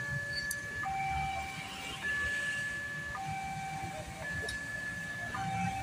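Railway level-crossing early-warning siren from a small horn loudspeaker sounding a two-tone hi-lo alarm, switching between a high and a low tone about once a second.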